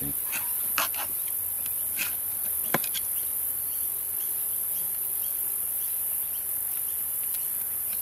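Steady high-pitched insect drone. In the first three seconds a knife clicks and scrapes lightly against the stingless-bee honey super's wire grid and honey pots as they are cut free, with one sharp click near the third second.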